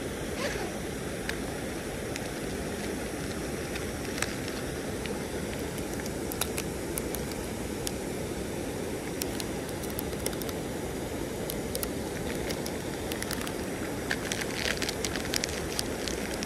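Steady rush of a shallow, rocky creek's running water, with scattered small clicks of fishing tackle and bait being handled during a bait change, most of them about six seconds in and again near the end.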